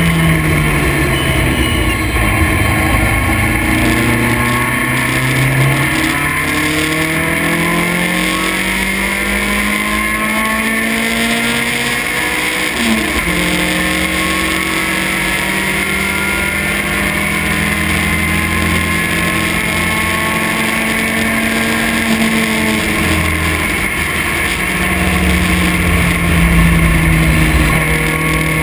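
Vintage race car's engine heard from inside the open cockpit, pulling hard with its pitch climbing steadily, then dropping suddenly about halfway through at an upshift. It holds steady high revs after that, then eases to a lower note near the end.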